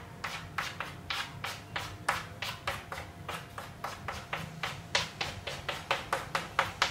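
Chalk on a blackboard making quick short dashes, each stroke a brief tap and scratch, about four to five a second.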